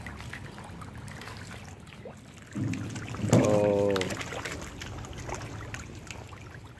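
Pond water splashing and lapping as a crowd of fish churns the surface where a hand reaches toward them, with many small splashes and clicks. A short voice is heard about halfway through.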